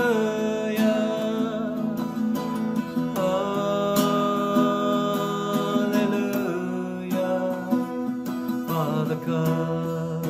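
A man singing a slow worship song and accompanying himself on a strummed acoustic guitar, holding long sung notes over steady chords.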